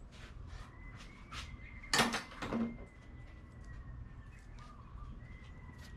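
Old wiper blade being slid off its metal wiper arm by hand: a few light clicks and rattles of the blade's clip against the arm, the loudest two about two seconds in.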